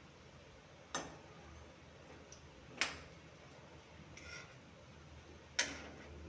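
A metal spatula knocking three times against a metal kadhai while turning besan dumplings frying in oil, each knock sharp with a short ring, the last two the loudest. A faint steady hiss of frying oil lies underneath.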